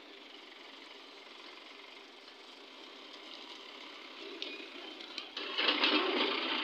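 JCB 3DX backhoe loader's diesel engine running steadily while its backhoe bucket digs into earth, with a few sharp clicks. About five and a half seconds in, a much louder, rougher rush comes as the bucket works through the soil and lifts out full.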